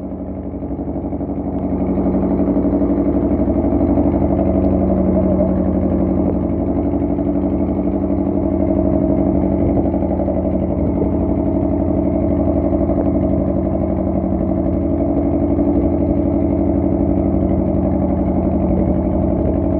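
Fishing boat's engine running steadily under way, a little louder from about two seconds in.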